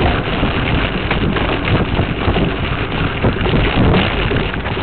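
Mountain bike rolling fast over a dirt singletrack. A camera mounted on the bike's frame picks up a steady rattling rumble and dense crackle from trail vibration and tyre noise, mixed with wind on the microphone.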